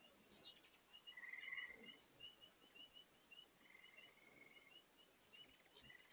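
Faint sounds of hummingbirds crowding feeders: brief high squeaky chatter about half a second in and again near the end, a few short buzzy trills, and a run of quick high chips, about five a second, from about two seconds in. Under it lies a faint even hiss of rushing water from a large spring far below.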